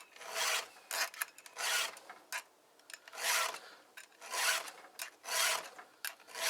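A chainsaw file drawn by hand across the cutter teeth of a chainsaw chain: about five scratchy rasping strokes roughly a second apart, with light clicks between strokes as the file is set back.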